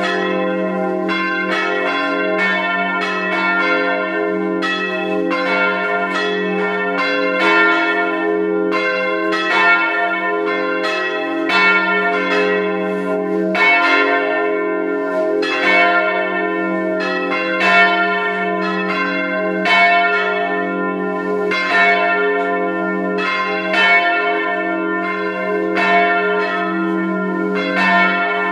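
Several church bells, swung by hand-pulled ropes, ringing together as a full peal. The strikes overlap, with louder ones about every two seconds, over a steady low hum from the bells.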